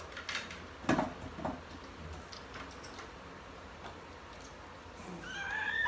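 Scattered light clicks and taps of utensils against bowls and dishes during a meal. Near the end, a young child's high-pitched squeal starts.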